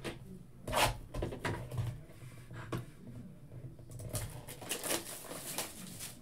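Plastic shrink-wrap being torn and peeled off a cardboard trading-card blaster box, crinkling and crackling in short irregular spurts, then the packs slid out of the box.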